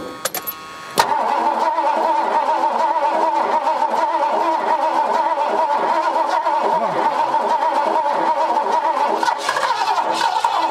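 The 1977 Lincoln Continental's V8 fires about a second in and keeps running steadily after 35 years of sitting. It runs with what the crew takes for a bit of lifter noise, from oil not yet worked through the engine.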